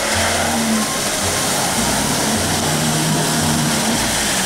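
Jeep Wrangler Unlimited Rubicon driving through a muddy puddle, its engine running under the steady splash of water thrown up by the tyres.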